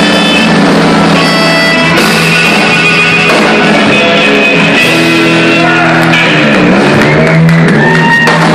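Live blues band playing loud: electric guitar, drums and electric bass, with trumpet and harmonica.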